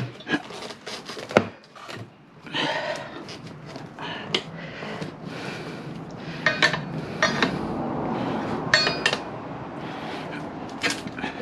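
Metal tire levers clanking and scraping against a motorcycle wheel rim as a tire is levered on by hand: scattered sharp clicks and knocks, with several ringing metal strikes in the middle of the stretch.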